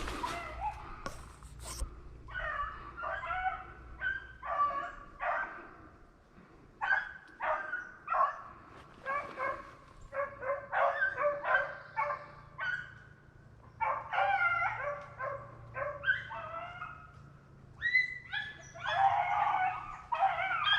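Rabbit-hunting hounds barking, a steady string of short pitched barks coming in quick clusters with a brief lull about six seconds in.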